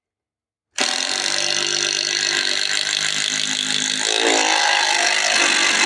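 Power drill running under load, driving a long screw into a wooden beam; it starts just under a second in, and its pitch shifts about four seconds in.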